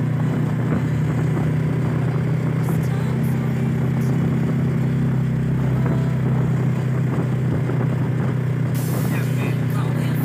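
Vehicle engine running at steady revs while cruising, an even drone with road and wind noise.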